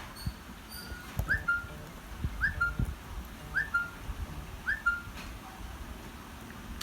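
A short whistled call repeated four times about a second apart. Each call is a quick up-and-down note that runs straight into a steady lower note.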